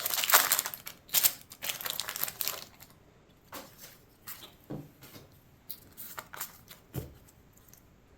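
Foil wrapper of a Pokémon booster pack crinkling and tearing as it is opened, loud for about the first three seconds. Then quieter handling of the cards and wrapper, with a few soft taps.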